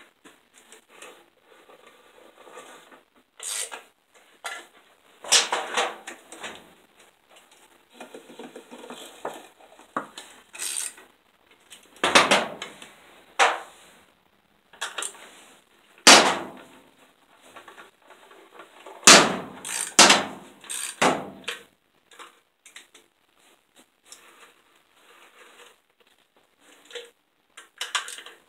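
Hand tools clinking and clanking on the metal of a Dodge 318/360 V8 being reassembled, in irregular taps and scrapes with several sharp metallic knocks in the middle.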